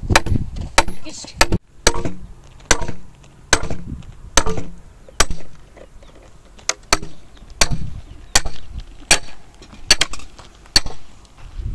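Firewood being chopped: a run of sharp blows on wood, about one a second, some in quick pairs, with a short pause about halfway through.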